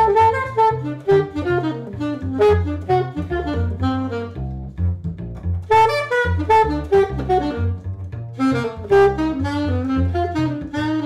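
Alto saxophone improvising a modern-jazz line over a plucked double bass, in 7/4 time with one chord to each bar.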